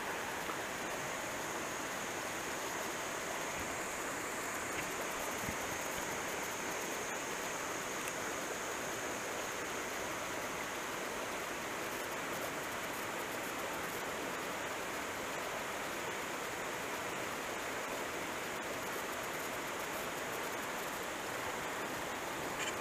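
Steady rush of a mountain creek's flowing water.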